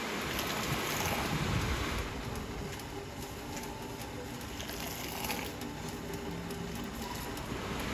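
Milk tea pouring in a steady stream from a tall steel jug into a paper cup.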